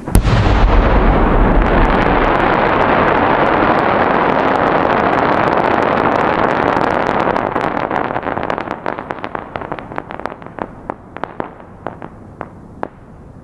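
An 8-inch (200 mm) gold crackling willow display shell bursting with a deep boom, followed by a dense crackle of the willow stars that runs for several seconds, then thins out into scattered single cracks and fades near the end.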